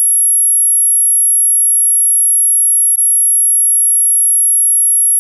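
A steady, very high-pitched pure tone from a tinnitus sound video, held at one pitch without a break.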